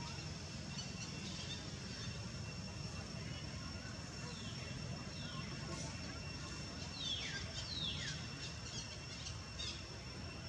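Outdoor forest ambience: a steady low rumble under a steady high whine, with a few short falling whistled calls, the clearest two about two-thirds of the way through.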